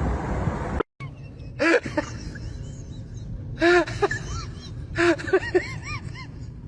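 A pet animal's short, high-pitched calls, each rising and then falling in pitch, come in a few small groups. They follow a steady noise that cuts off about a second in.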